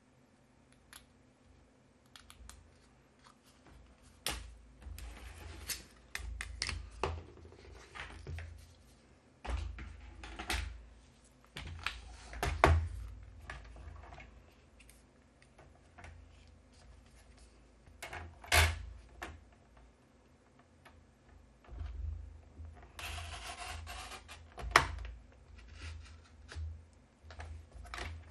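Cardstock handled and laid on a Stampin' Up! paper trimmer: scattered taps, clicks and knocks of card and plastic. Near the end comes a short rasping slide, the trimmer's blade cutting through the card.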